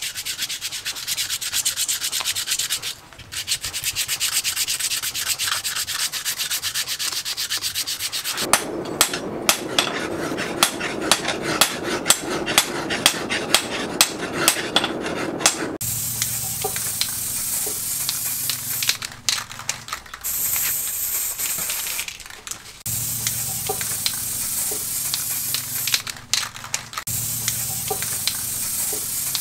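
Steady rubbing of hand sanding for about eight seconds, then a stretch of handling noise with many sharp clicks. From about halfway through, an aerosol spray can hisses onto the knife's wooden handle in bursts, with short pauses between sprays.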